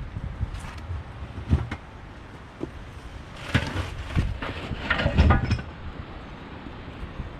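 Irregular knocks, clunks and scrapes from work to get an old tractor tire off its rim, with the heaviest cluster of blows a little past the middle.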